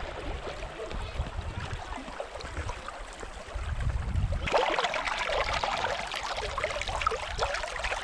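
Shallow river water trickling and splashing over rocks. About four and a half seconds in it suddenly becomes louder and brighter, heard close to the water running between the stones.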